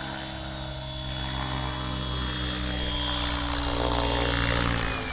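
Size-700 radio-controlled model helicopter flying in to land, its rotor giving a steady whirr with a rhythmic 'phuep-phap' blade beat. It grows louder as it comes closer, then dips slightly in level and pitch near the end.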